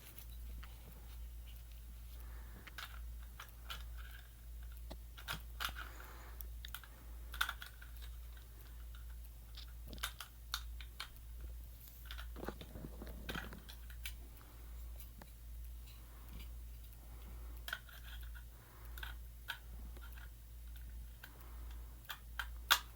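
Scattered light clicks and taps of puzzle-ball pieces being handled and fitted together, over a low steady hum.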